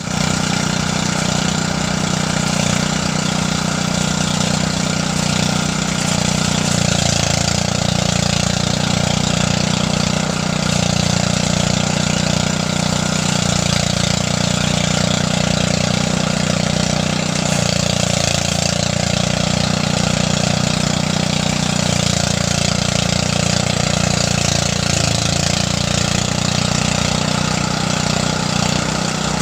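Engine-driven rice threshing machine running steadily, with a strong low hum and a dense rushing noise over it.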